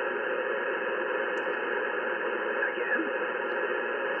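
Steady hiss of band noise from the Yaesu FT-710 transceiver's receiver on 10-metre upper sideband, with no high treble. The operator can't place the noise blanketing the band and suspects radar.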